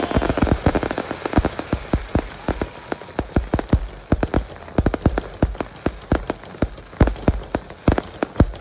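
Fireworks going off as a rapid, uneven stream of sharp cracks and pops, several a second, densest at the start.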